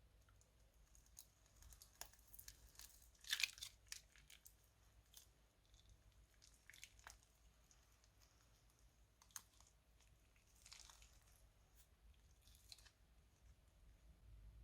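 Faint, scattered crackling and crinkling of crunchy clear slime being worked by hand, with the loudest cluster of crackles about three seconds in.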